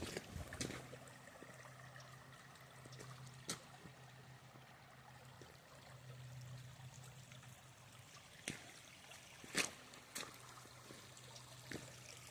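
Shallow creek water trickling faintly over rocks, with a few sharp clicks and a low steady hum underneath that swells and fades.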